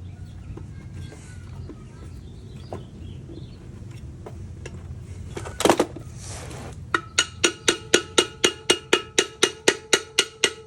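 One loud knock, then rapid, even tapping on the metal side cover of a small engine block, about five strikes a second, each ringing with the same metallic tone: knocking the cover loose. A low steady hum runs underneath.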